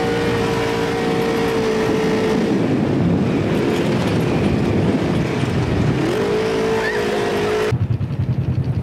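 Polaris RZR side-by-side dune buggy engine running under way over sand. Its pitch holds steady at first, then swings up and down with the throttle for a few seconds, then climbs and holds. Near the end the sound cuts abruptly to a lower, pulsing rumble.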